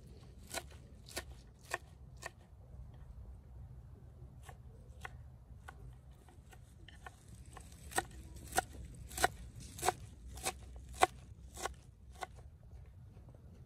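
Large kitchen knife chopping fresh cilantro and parsley on a wooden cutting board: evenly spaced strokes a little over half a second apart, a few at the start, softer ones in the middle, and a louder run of strokes from about 8 to 12 seconds in.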